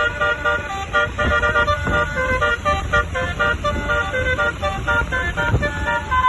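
Bus basuri horn, a set of musical air horns, playing a quick melody of short notes one after another over a low rumble.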